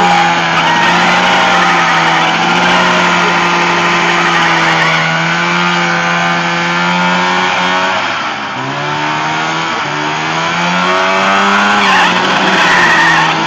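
Liquid-cooled Polaris Indy 500 two-stroke snowmobile engine in a lawnmower, held at high revs while the rear tyres spin in a burnout. The revs dip about eight seconds in and climb back up.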